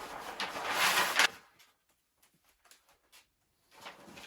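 Rustling, scraping noise of something being handled or slid over a surface, which cuts off abruptly about a second in; then near silence with a few faint taps near the end.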